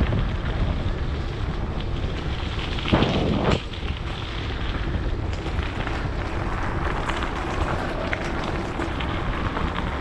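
Wind buffeting the camera microphone as a steady low rumble, with a louder gust about three seconds in.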